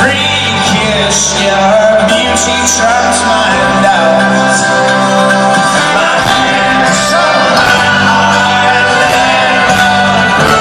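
A folk-rock band playing live, with a male voice singing the lead over steady, full chords.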